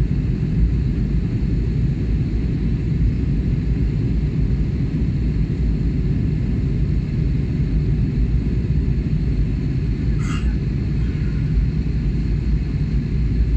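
Steady low rumble of jet airliner cabin noise, engines and rushing air heard from inside the cabin, with a brief faint higher sound about ten seconds in.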